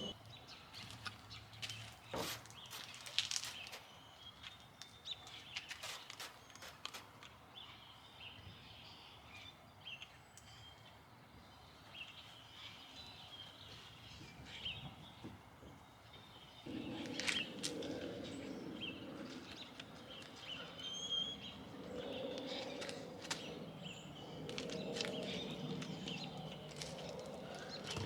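Birds chirping, with scattered sharp clicks and knocks. About two-thirds of the way through, a steady low rushing noise starts abruptly and carries on.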